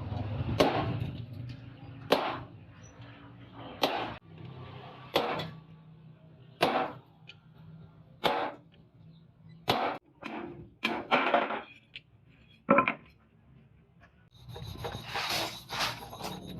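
Single hammer blows on the steel blade about every one and a half seconds, about ten in all, two of them close together a little past the middle. Near the end a steady scraping sound starts.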